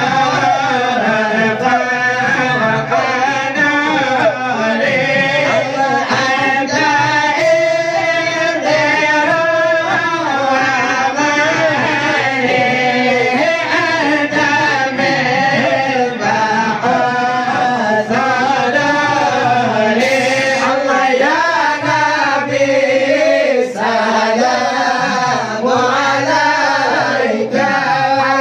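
Group of men chanting an Acehnese syair together, one voice sung into a microphone; continuous melodic group singing.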